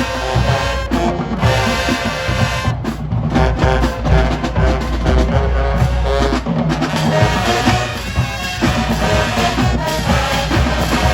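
Marching band playing loudly: brass sounding sustained chords over a steady drumline with bass drums and snares.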